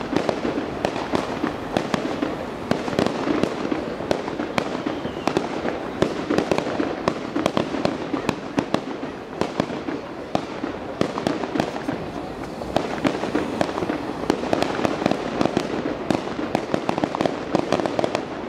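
Fireworks display: aerial shells bursting with dense crackling and many sharp bangs in quick succession, without a pause.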